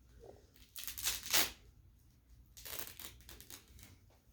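Paper and cardboard craft pieces being handled, with short bursts of rustling and crinkling, the loudest about a second in and another near the three-second mark.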